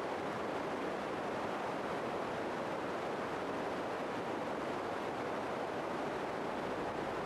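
A steady, even hiss-like rushing noise at a constant level, with no distinct events, tones or changes.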